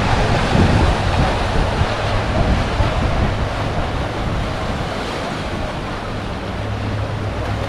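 Sea surf washing over a rocky shore, a steady rushing noise, with wind buffeting the microphone.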